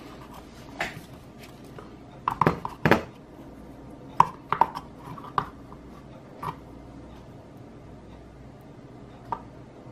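Light knocks and clicks of small parts handled on a tabletop: a metal air-variable tuning capacitor set down on a thin plywood base, shifted about and picked up. The clicks come singly and in short clusters.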